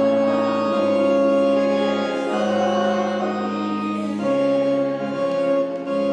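Organ playing a hymn in slow, sustained chords that change every second or so.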